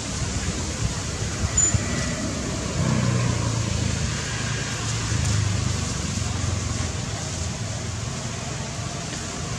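Outdoor background noise: a steady low rumble that swells about three seconds in and eases off after about six seconds.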